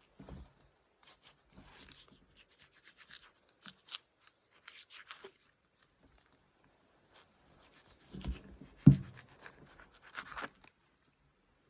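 Intermittent light scraping, rustling and clicking of wood being worked by hand, with a single sharp knock about nine seconds in.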